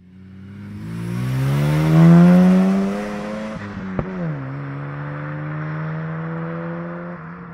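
Mazda RX-7's rotary engine accelerating, its note rising and loudest about two seconds in. About four seconds in there is a sharp click and the note drops, then holds steady and fades near the end.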